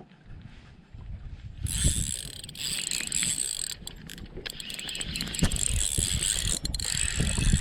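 Fishing reel cranked to retrieve line, a steady whirring that starts about a second and a half in, with low knocks under it.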